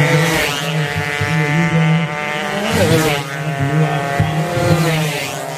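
Racing 120cc underbone motorcycles going by at high revs, one after another, each pass surging and then falling in pitch as the bike goes away.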